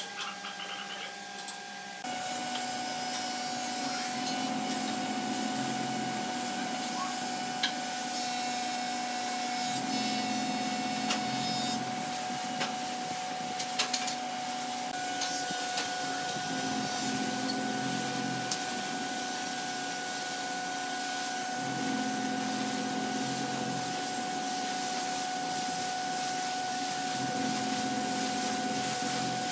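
Compressed-air spray gun hissing steadily as finish is sprayed onto a hardwood tabletop, with a steady hum beneath.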